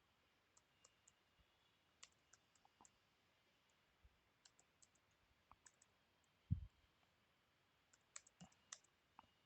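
Faint, scattered clicks of a computer mouse and keyboard, with a single louder low thump a little past the middle.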